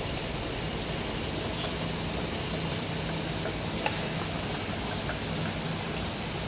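Bottle labelling machine and its conveyor running: a steady mechanical hiss with a low hum that comes and goes, and a few faint clicks, the sharpest about four seconds in.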